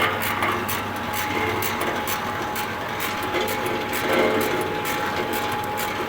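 Wood pellet mill running: a steady low machine hum with a thin steady whine and irregular rattling clicks over it.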